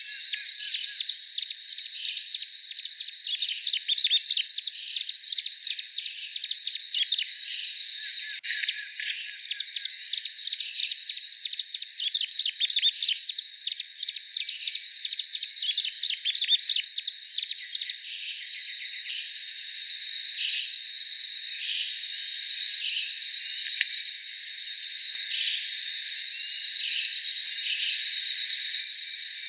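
A songbird singing a long, rapid twittering song in two bouts, the second ending sharply about eighteen seconds in, over a steady high-pitched insect drone. After that, only short single high call notes come every couple of seconds against the drone.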